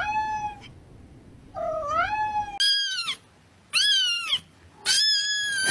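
Domestic cat meowing: a string of about five drawn-out meows, each under a second, the later ones higher-pitched.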